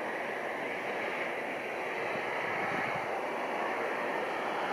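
Distant engine noise of a Boeing KC-767 tanker's twin jet engines as it climbs away, a steady rush that grows slightly louder toward the end.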